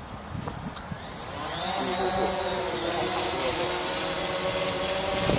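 Small multirotor drone's propellers spinning up about a second in, the whine rising in pitch and then settling into a steady, louder hum as it lifts off.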